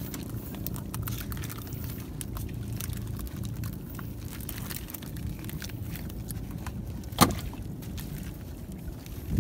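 Seawater pouring and dripping off a gill net as it is hauled hand over hand over the gunwale of a small wooden outrigger boat, with a steady low wash of water, light clicking and one sharp knock about seven seconds in.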